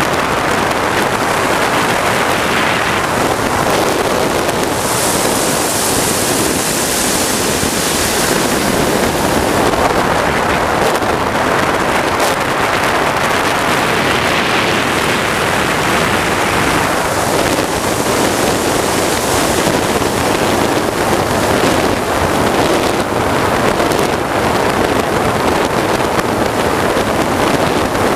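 Loud, steady rushing noise of a turbine-powered RC sport jet and the air rushing past it, with no clear whine. The hiss swells brighter about five seconds in and again around fifteen seconds.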